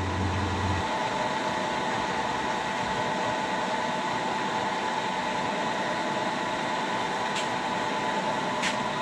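Milling machine running a Woodruff key cutter slowly into a cold-rolled steel shaft, a steady whine near 1 kHz over the cutting noise. The machinist thinks the old cutter is a little dull, and it can only be fed slowly. A low hum stops just under a second in, and two brief ticks come near the end.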